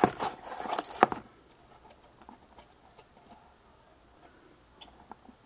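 Handling noise on a workbench: about a second of rustling with two sharp clicks, then faint scattered ticks as small parts and tools are moved about.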